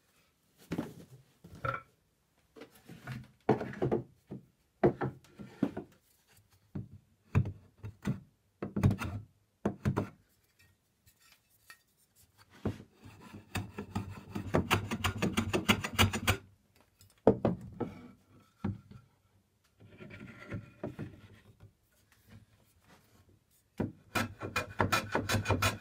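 Hand tools working a new wooden chair leg: a run of separate short rubbing strokes and wood knocks, then a few seconds of fast, continuous rasping near the middle and again near the end.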